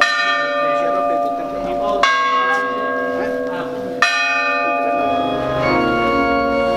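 A church bell tolling slowly, struck three times about two seconds apart, each stroke ringing on until the next: a funeral toll. A little before the end the bell gives way to organ music.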